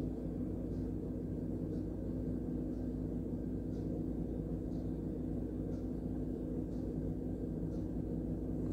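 A steady low hum, like a motor running, with faint light ticks about once a second.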